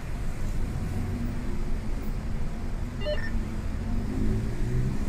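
Car running at low speed, its engine and road rumble heard from inside the cabin, with a short high beep about three seconds in.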